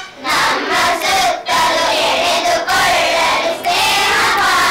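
A class of schoolchildren singing a line of a Kannada song together, echoing the line the teacher has just sung. Many young voices blend into one unison chorus.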